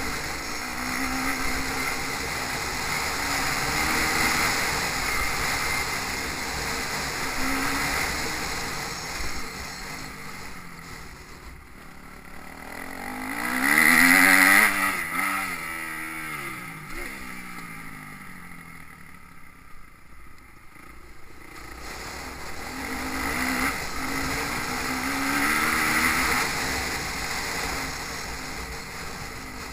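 Motocross bikes running on the track, engines revving up and down through the gears. About fourteen seconds in, one passes close and loud, its pitch dropping as it goes by. The sound fades, then builds again as bikes come round.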